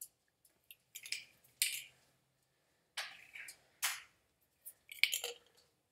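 Plastic Death Trooper coin bank being shaken, with a loose piece inside rattling against the hollow shell in several short, irregular clatters.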